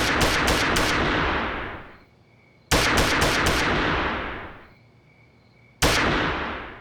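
Automatic gunfire: a rapid burst of about four shots a second that ends about a second in and echoes away, a second short burst near the three-second mark, then a single shot near the end, each dying away in a long echo.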